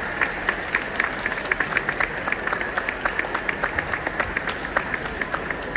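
Audience applauding: a small crowd clapping steadily, with individual hand claps heard distinctly.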